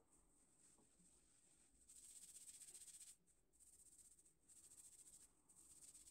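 Fingertips rubbing and massaging oiled hair and scalp: faint, crisp rustling that comes in four stretches of about a second each, beginning about two seconds in.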